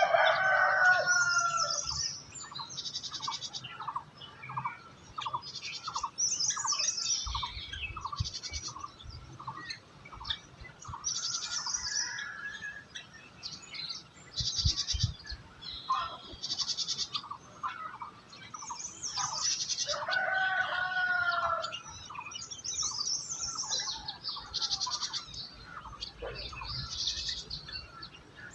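Several wild birds singing and calling together, with high chirps and trills over a repeated lower note about twice a second. A longer, lower call with several pitches comes at the start and again about twenty seconds in.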